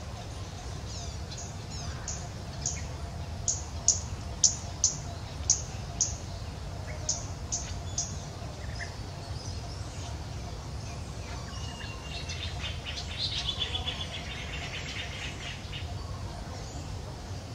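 Bird calling in the background: a run of short, sharp, high chirps, each falling in pitch, about two a second for several seconds, then a quick rattling trill about two-thirds of the way through. A steady low rumble lies underneath.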